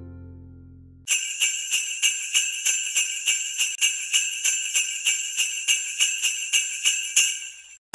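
Sleigh bells shaken in a steady rhythm, about three shakes a second, starting about a second in and stopping just before the end. Before them, the last of a low sound fades out.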